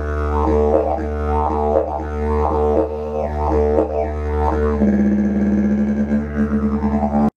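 Didgeridoo playing a steady low drone, its tone swelling and changing in a rhythm of about two a second. About five seconds in, the tone shifts to a stronger, higher overtone. It then cuts off suddenly.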